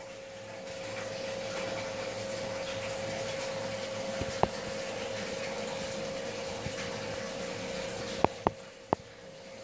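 Aquarium pump and water flow running: a steady rush of water over a constant hum. A sharp click about halfway through and three quick clicks near the end.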